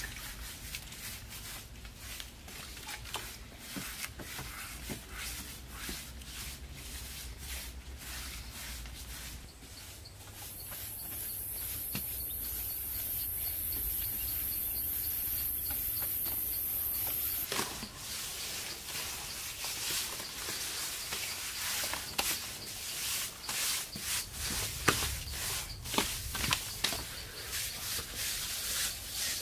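Scattered knocks, clicks and scrapes of hand building work, with a high steady buzz from about ten seconds in until about seventeen seconds.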